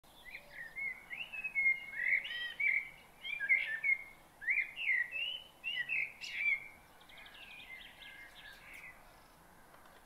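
Songbirds chirping and singing in a busy run of short notes, each rising and falling. After about seven seconds the singing drops to fainter calls, with a brief quick rattle.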